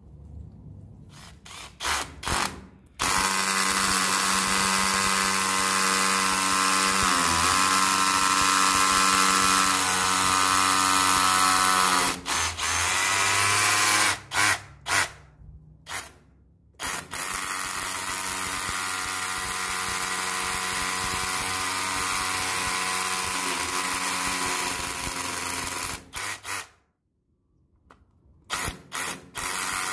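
Milwaukee M12 cordless rotary hammer motor running under trigger control. A few quick blips come first, then two long steady runs of several seconds each, with short bursts between them and again near the end. The motor pitch sags briefly partway through the first long run.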